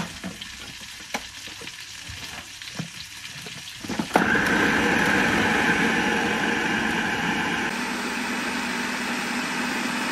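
Electric food processor running steadily after starting about four seconds in, its blade chopping boiled carrots into mash. Before it starts, a few light clicks as the plastic lid and pusher are handled.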